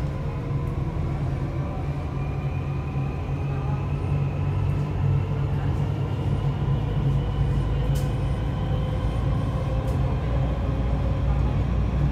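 Dubai Metro electric train running on an elevated track, heard from inside the front car: a steady low rumble of wheels on rail with an electric motor whine that slowly rises in pitch as the train gathers speed.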